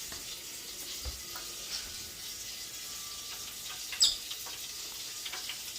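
Prime rib roast sizzling in hot fat: a steady crackling hiss with small pops. A single sharp click about four seconds in is the loudest sound.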